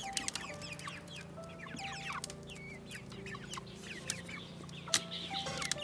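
Chickens clucking and chirping throughout, with a few sharp clicks of split-bamboo strips being worked into a woven basket.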